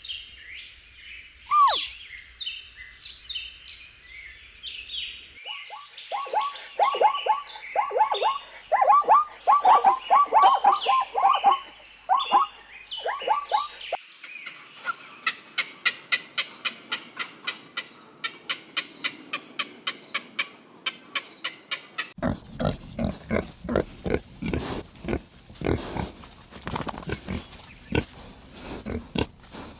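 A run of farm animal sounds in turn: small birds chirping, then a loud burst of quick, repeated, falling calls, then a long series of short, evenly spaced calls that grow deeper about two-thirds of the way through.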